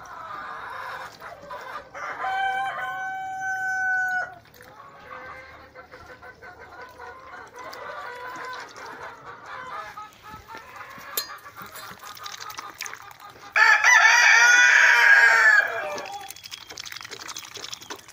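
Roosters crowing twice: a steady held crow about two seconds in, and a much louder crow near the end. Hens cluck in between.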